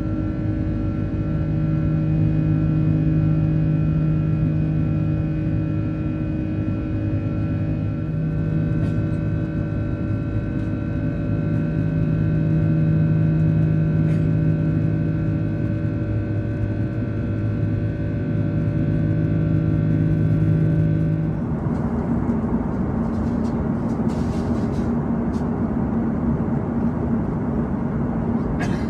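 Airbus A330-300 cabin noise: a steady engine drone made of several even hum tones over a low rumble. About three-quarters of the way through it changes suddenly to an even rushing noise with a single low hum.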